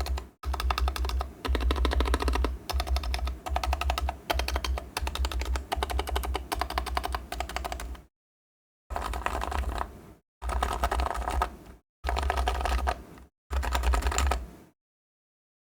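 Typing on an electro-capacitive keyboard with HHKB Pro 2 45 g rubber domes and silencing rings: fast, continuous keystrokes for about eight seconds, then four short bursts of typing with silent gaps between them, stopping shortly before the end.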